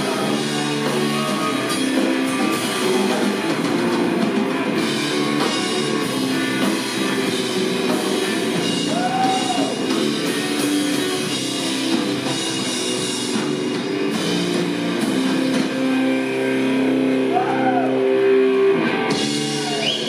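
Live rock power trio playing an instrumental passage: electric guitar with a few bent notes over electric bass and drum kit.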